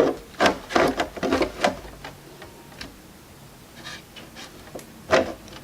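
Hard plastic knocks and rubbing as a loose RC car body shell is set and shifted on the chassis: a quick run of clicks and taps in the first two seconds, then a single louder knock near the end.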